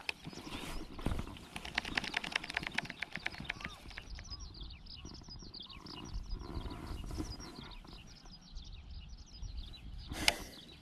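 Small birds chirping, with a run of rapid, evenly spaced clicks in the first few seconds and a single sharp click near the end.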